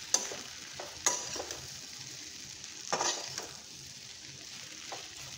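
Metal spatula stirring and scraping strips of roti and vegetables around a metal kadai over a steady sizzle. There are a few sharp scrapes or knocks of the spatula against the pan, about one second in, around three seconds and near five seconds.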